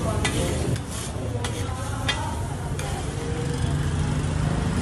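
Metal scraper scraping and pushing egg-and-vegetable tikki mixture across a hot flat tawa griddle, with a sizzle under it; several separate scrapes about half a second to a second apart. A steady low rumble runs underneath.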